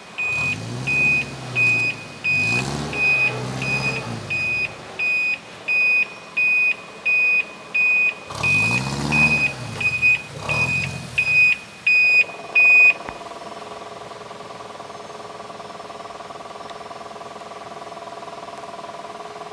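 A car's warning beeper sounding in short, even beeps, about one and a half a second, stopping about two-thirds of the way through. Under the beeps the engine revs up and falls back twice under load. After the beeping a steady hum remains.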